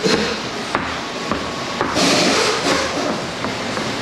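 A few sharp knocks and clanks, with a short hissing burst about two seconds in.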